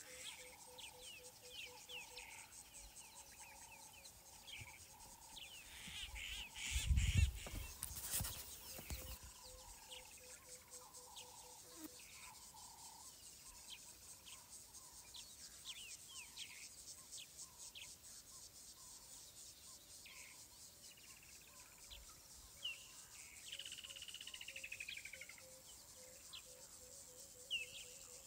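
Bush ambience: many small birds chirping and calling, over a steady high buzz of insects, with a repeated pulsing call running underneath. About seven seconds in comes a brief low rumble with a couple of knocks, the loudest moment.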